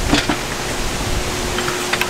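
Wind rushing across the microphone in low, uneven gusts, with a few short light knocks near the start and again near the end.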